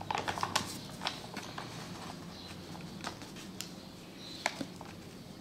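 Paper bag of wheat flour crinkling and rustling as flour is poured out into a bowl: a cluster of crackles in the first second, then scattered faint clicks.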